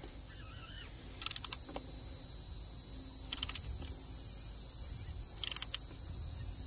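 Ratchet clicking in three short bursts about two seconds apart as it is swung back and forth to unscrew a plastic oil filter cover, over a steady high hiss.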